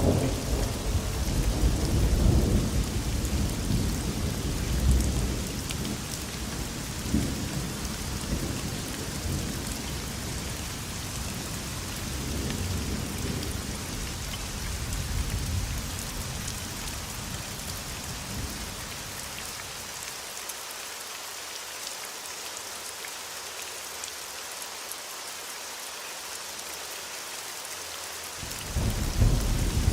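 Thunderstorm: steady rain hissing throughout, with thunder rumbling heavily in the first few seconds and slowly dying away. A new roll of thunder breaks in suddenly near the end.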